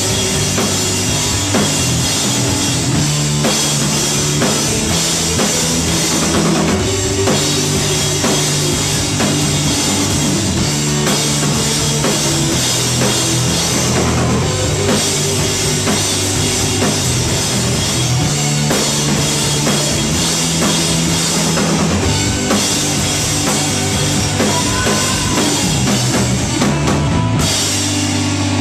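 Rock band playing live: a drum kit with bass drum and cymbals driving under electric guitars. Near the end the drums and cymbals drop out, leaving the guitars ringing.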